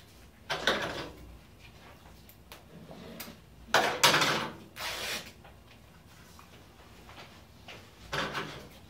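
Rustling and scraping of a mesh laundry bag as it is handled and fitted into the bottom of a plastic worm bin: four short bursts, the loudest about four seconds in.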